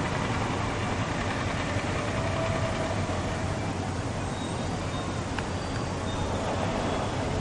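Steady outdoor background rumble and hiss, even throughout, with one faint tick about five seconds in.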